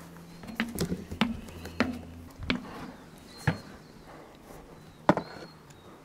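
Footsteps on the boards of a footbridge: a run of irregular knocks, with the loudest steps about midway and near the end.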